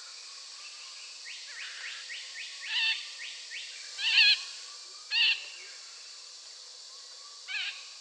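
Long-tailed parakeet calling: a quick run of short rising chirps, then four loud, harsh screeching calls spaced a second or two apart, over a steady high hiss of background noise.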